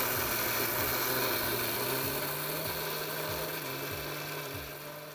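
Indian electric mixer grinder (mixie) running at full speed, dry-grinding roasted toor dal with dried red chillies, garlic, tamarind and salt in its steel jar: a steady motor hum under a loud grinding whir. It tapers off near the end as it is switched off.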